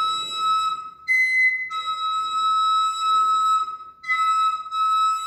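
Slide whistle blown in steady held notes to imitate a train whistle: a long low note, a short higher note about a second in, the low note held again, then another brief higher note and the low note near the end.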